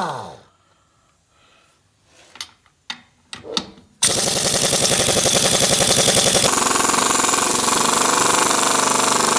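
Air impact wrench hammering steadily on a seized fastener that will not break loose, starting about four seconds in; its tone shifts about halfway through. Right at the start there is a brief falling whine, then a few clicks and knocks before the hammering.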